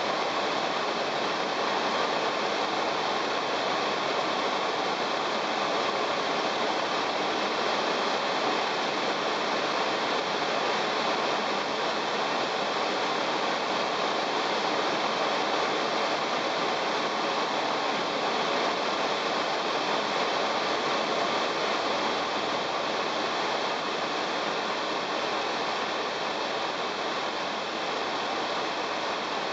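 Steady engine and airflow noise inside the cockpit of a Jodel DR1050 light aircraft in flight. It eases slightly about three-quarters of the way through.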